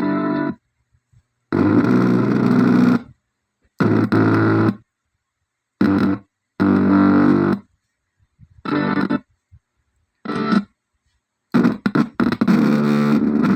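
Music with a distorted electric guitar and a strong bass line, heard in short stretches that start and stop abruptly, with dead silence between them, about eight times.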